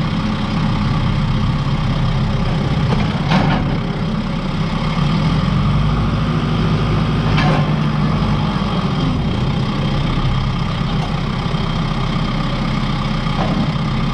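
A vehicle engine idling steadily, with two short sharp knocks about three and seven seconds in.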